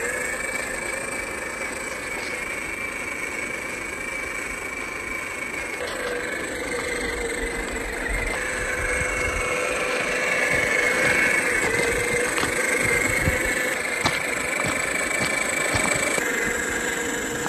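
Scale RC crawler's electric motor and gear drivetrain whining as it drives, the whine wavering in pitch with the throttle and growing louder about halfway through.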